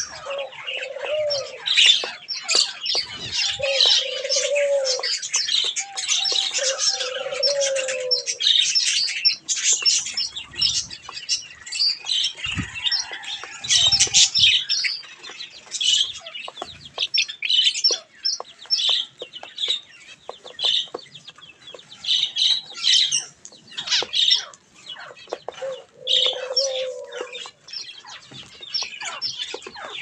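Budgerigars and zebra finches chattering and chirping in a dense, continuous stream of short high calls. A dove coos low four times: near the start, twice more in the first eight seconds, and once near the end.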